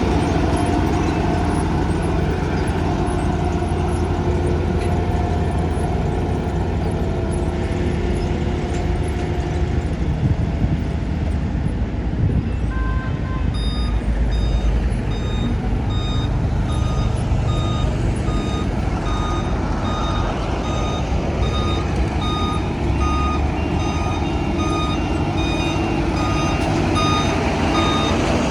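Heavy vehicle engine running. About halfway through, a reversing alarm starts, giving short, evenly spaced beeps.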